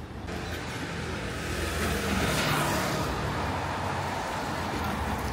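A road vehicle passing close by on a city street: engine hum and tyre noise swell to a peak about two and a half seconds in, then ease off.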